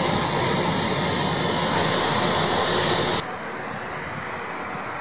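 Rolls-Royce Trent 700 turbofans of an Airbus A330-300 running on the ground: a steady hiss and whine with several held tones. About three seconds in the sound cuts abruptly to a quieter, duller engine noise.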